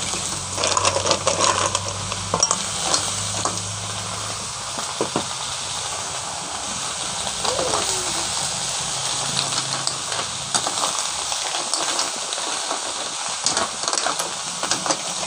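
Cooked green mussel shells clacking together and a metal ladle scraping an aluminium pan as a big batch of sautéed mussels is stirred, over a steady sizzling hiss from the hot pan.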